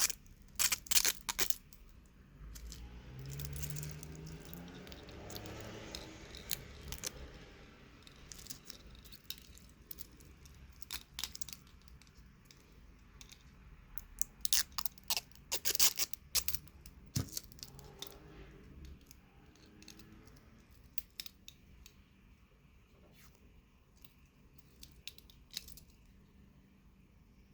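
Hands handling an Orient Mako II wristwatch and its packaging: scattered sharp clicks and light metallic clinks, thickest at the start and again about halfway through. A low murmur runs for a few seconds near the beginning.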